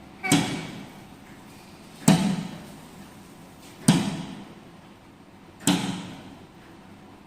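Vending-machine locker doors unlatching and springing open one after another: sharp metal bangs evenly spaced, about one every two seconds, each ringing briefly.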